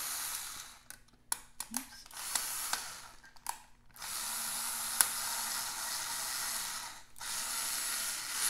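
Small cordless drill running in three bursts as it drives a long bolt up into the ribber stopper of a sock knitting machine, with a few sharp clicks in the pause between the first and second run.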